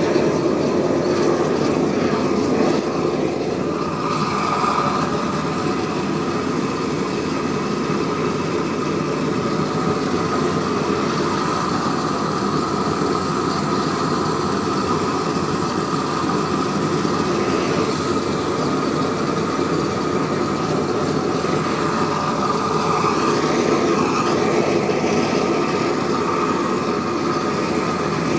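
Propane weed-burner torch burning steadily with a loud, even hiss.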